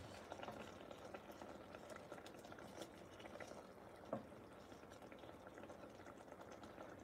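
Fish simmering in butter and its juices in a pot: a faint, steady bubbling crackle. A light knock, the wooden spatula against the pot, about four seconds in.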